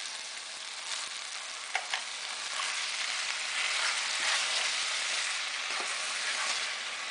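Pan of browned ground bison sausage and onions sizzling as canned diced tomatoes are poured in and stirred with a wooden spoon. The sizzle grows louder midway, with a couple of light knocks early on.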